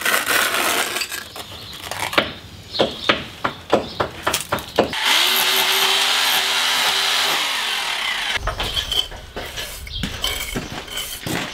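A steel trowel and jointing iron scrape and tap against slate as mortar is packed into the joints of a rubble-stone wall, making many short scrapes and clicks. About five seconds in, a power chisel runs steadily for about three seconds, chipping old render off the stone. Then the scraping and tapping resume.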